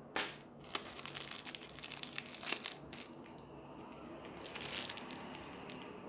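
Small clear plastic parts bag crinkling in the hands as screws are picked out of it. It comes in dense bursts through the first three seconds and again about four and a half seconds in.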